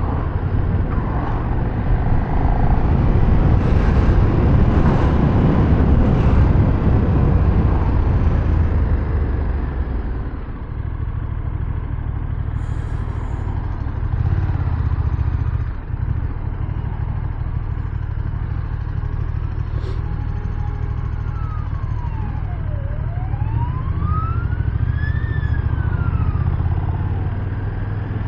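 KTM 1390 Super Duke R's V-twin engine running on the road, louder for the first several seconds and then steadier. In the second half a siren wails, rising and falling in pitch for several seconds.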